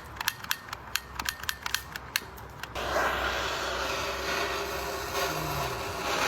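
Gas torch igniter clicking repeatedly. About three seconds in, the torch lights and burns with a steady hiss.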